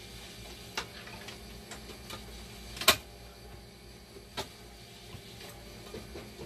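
A handful of separate sharp clicks and knocks, the loudest about three seconds in: circuit boards and plastic panels being handled and seated in the open card cage of a dialysis machine.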